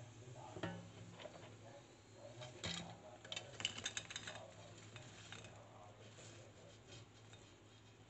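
Air-fried potato chips being tipped from the air fryer basket onto a ceramic plate: scattered clatter and light clinks of the basket and a metal fork against the plate, busiest around the middle. A faint low hum runs underneath.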